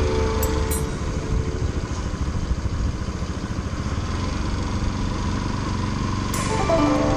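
Motorcycle engine idling steadily with an even, fine pulse. Background music is heard in the first second and again near the end.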